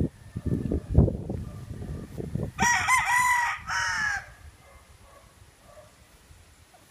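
A Kelso gamecock crowing once, about two and a half seconds in: a cock-a-doodle-doo of about a second and a half, with a short break before its last note. Before it come low rumbling knocks and one sharp thump about a second in.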